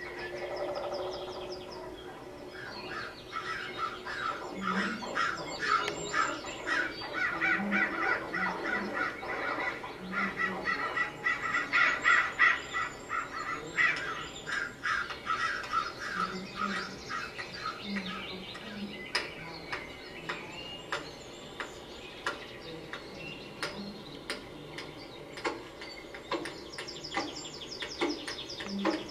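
Birds calling: rapid chattering trains of short chirps, busiest in the first half, with short low calls now and then.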